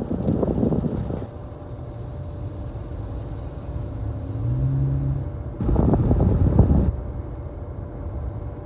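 Exhaust air from a freshly cleaned dryer vent rushing out and buffeting the microphone in two gusts of about a second each, over a steady low rumble.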